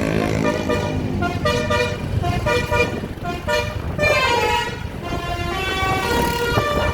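A 'telolet basuri' musical bus horn playing a tune of short stepped notes, with one note bending in pitch a little after four seconds in, over a low rumble.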